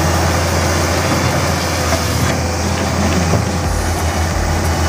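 Komatsu PC200 hydraulic excavator's diesel engine running steadily with a low drone as the arm works the bucket through brush and roots; a lower, uneven rumble joins in about three-quarters of the way through.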